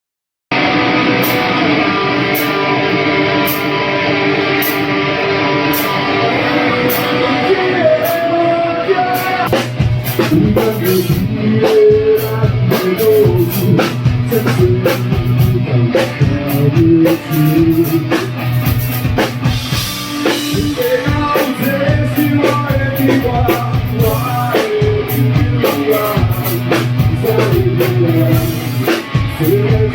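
Rock band music: it opens with held guitar chords, and about ten seconds in the drum kit and bass come in under a moving melody line.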